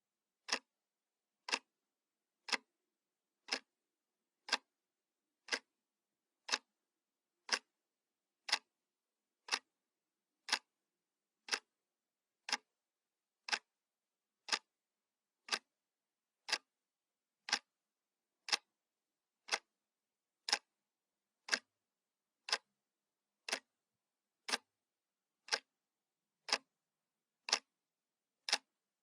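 Analog clock ticking, one sharp tick each second, steady and even.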